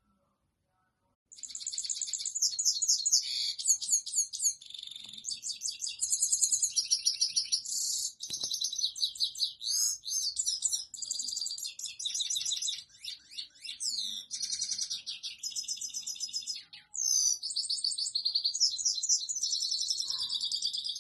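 European goldfinch singing: a male's courtship song directed at a female. After about a second of near silence it starts a long, unbroken run of rapid, high twittering phrases and trills.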